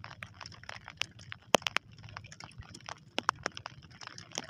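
Irregular sharp clicks and taps over a low rush of wind and water, aboard a small wooden outrigger fishing boat while a handline is worked hand over hand.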